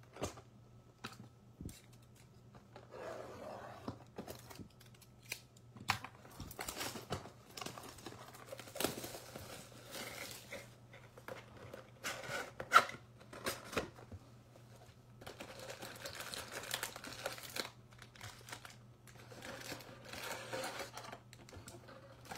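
Plastic shrink wrap being torn off a trading card hobby box and crumpled, in several crackly stretches with scattered clicks and one sharp snap about halfway through. A faint steady low hum runs underneath.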